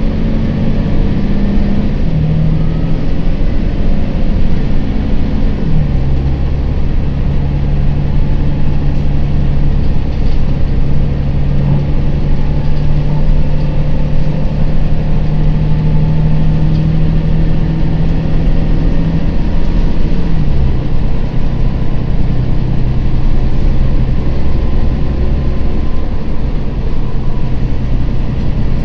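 Volvo B9TL double-decker bus's diesel engine running under way, heard from the upper deck with road rumble from a bumpy road. The engine note steps down in pitch a few times, clearly about six seconds in and again about twenty seconds in.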